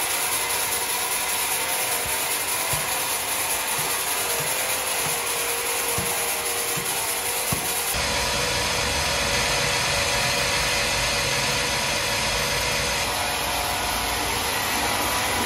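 Sawmill machinery running with a steady mechanical noise and a few light knocks in the first half. About halfway through, the sound changes abruptly and a low rumble comes in.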